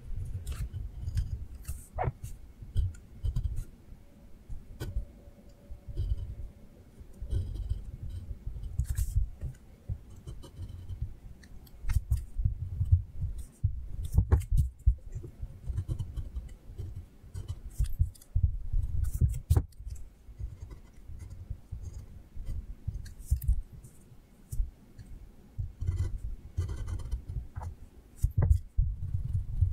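Drawing on paper: irregular scratching strokes of a drawing tool and the hand rubbing and bumping against the sheet and desk, with occasional sharp clicks.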